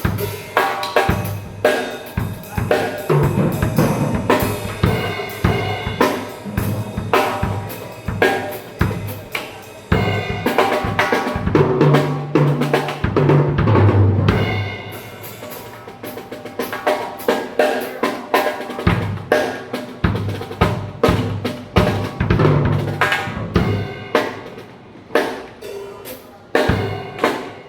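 Pearl Roadshow acoustic drum kit played continuously, with snare and bass drum strokes and a run of pitched tom hits around the middle.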